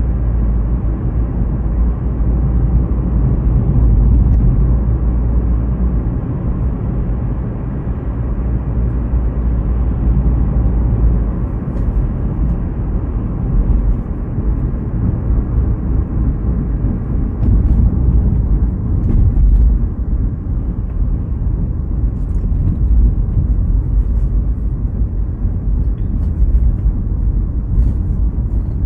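Car driving at road speed: a steady low rumble of tyres and engine.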